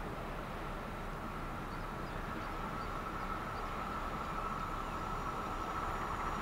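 A pair of DB class 294 diesel-hydraulic shunting locomotives running light towards the listener: a steady engine and rail rumble with a steady high whine on top, both getting slightly louder as they come closer.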